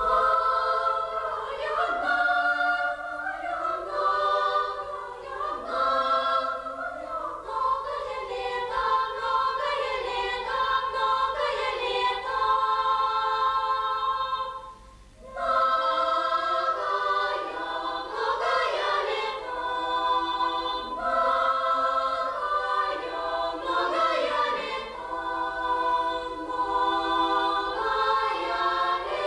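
Children's choir singing, with a brief break about halfway through before the singing resumes.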